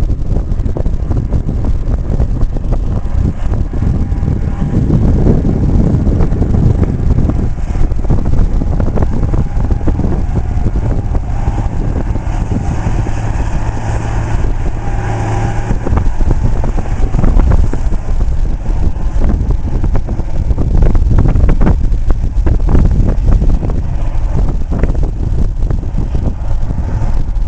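Diesel engine of a self-propelled crop sprayer running steadily as it drives past. A higher whine and brighter sound come in as it passes closest, about halfway through.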